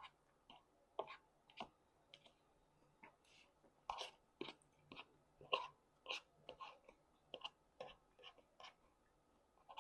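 A person chewing food close to the microphone: short, irregular mouth clicks and smacks, two or three a second.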